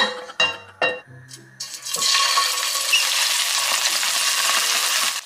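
A few knocks, then from about two seconds in, marinated chicken drumsticks sizzle loudly as they fry in hot oil in a nonstick frying pan. The sizzle cuts off suddenly near the end.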